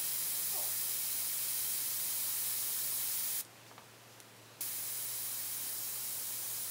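Gravity-feed airbrush spraying thinned ink: a steady hiss of air that cuts off a little over three seconds in, then starts again about a second later as the trigger is pressed once more.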